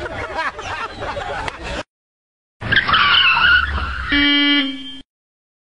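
An off-road jeep's engine straining as it churns through a mud pit, mixed with spectator voices. After a sudden dropout, a loud stretch of rough engine and mud noise with a heavy low rumble is followed by a brief steady tone before the sound cuts off.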